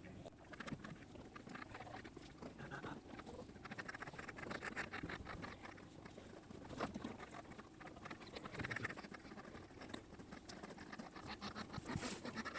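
Faint, rapid pattering and rustling of movement in coop straw bedding.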